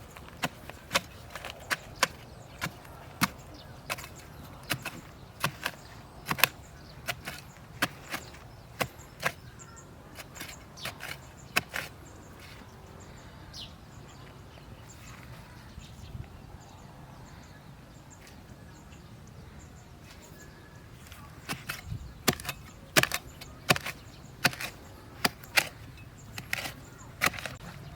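Repeated chopping blows on wood, sharp separate strikes a little more than one a second, thinning out in the middle and then picking up again in a quicker run near the end.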